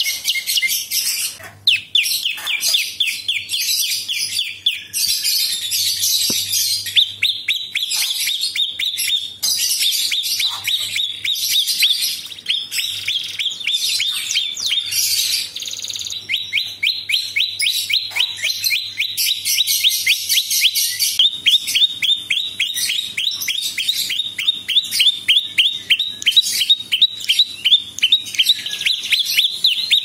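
Caged prinia (prenjak) singing a long, unbroken run of rapid, sharp, high repeated notes, mixed with harsh scratchy bursts.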